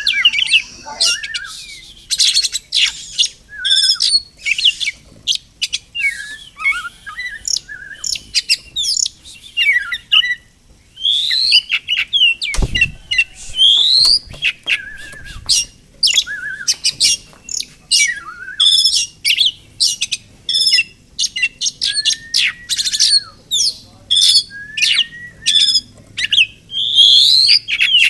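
Oriental magpie-robin singing a fast, varied song of whistles, chirps and rising slurred notes, with one low thump about halfway through.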